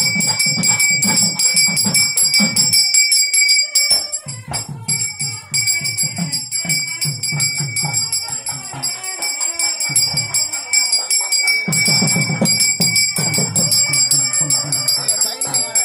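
A small brass hand bell, the kind rung in Hindu worship, shaken continuously so that it rings steadily and high, with a brief break about four seconds in. Low voices run underneath.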